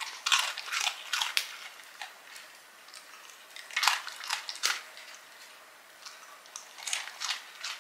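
Dogs crunching hard biscuit treats: three spells of crisp crunching, one near the start, one around four seconds in and one near the end.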